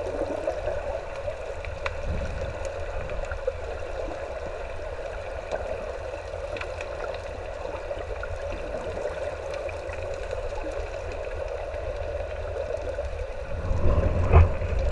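River current rushing, heard underwater through an action camera's housing: a steady, muffled rush with a low rumble. Near the end it swells into louder low thumps and knocks as the camera is moved about.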